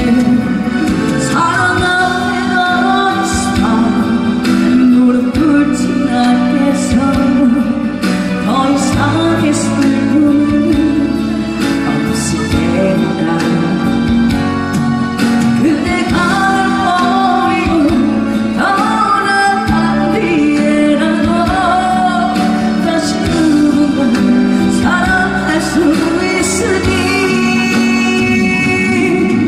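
Music: a song with a backing accompaniment and a singing voice carrying the melody.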